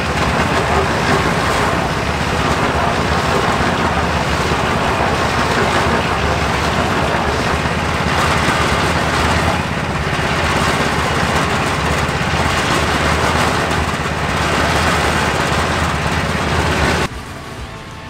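Portable concrete mixer running, its motor humming steadily under a broad rattling noise from the turning drum. The sound cuts off suddenly about a second before the end.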